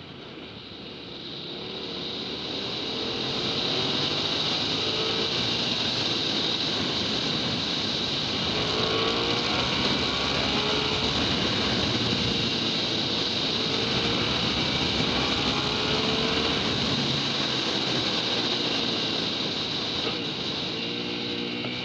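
Hyosung GT650R's V-twin engine under way at road speed, under heavy wind rush on the microphone. It grows louder over the first few seconds as the bike accelerates, and the engine note climbs in several short rising sweeps.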